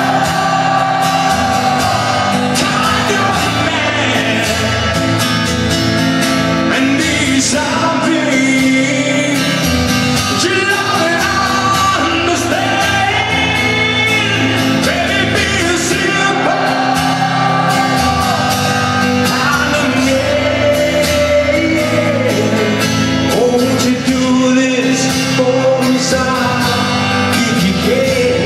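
Live rock band playing a slow song, a male lead vocal singing over guitar, as heard from within the audience.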